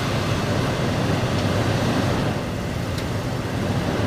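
2004 Toyota Sequoia's 4.7-litre V8 idling steadily just after being started, heard from beneath the vehicle.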